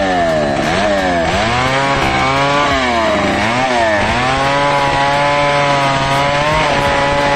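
Chainsaw running and cutting wood. Its engine pitch drops sharply under load about a second in and again around three seconds, recovering each time, then runs steadier near the end.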